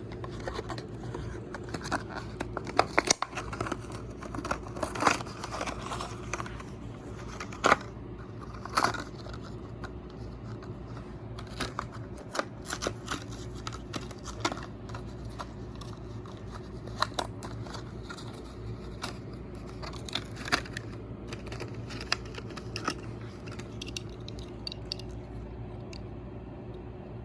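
Toy car packaging being handled and opened by hand: irregular clicks, crinkles and rustles of plastic and card, busiest in the first third, over a steady low hum.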